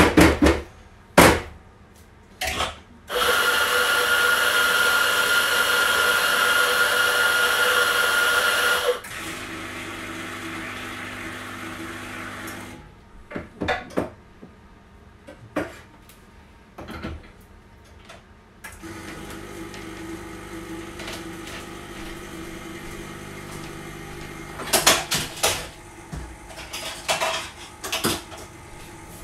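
Espresso being made on a portafilter machine. A coffee grinder runs loudly for about six seconds, then there are knocks and clatter from handling the portafilter. Through the second half the espresso machine's pump hums steadily as the shot is pulled.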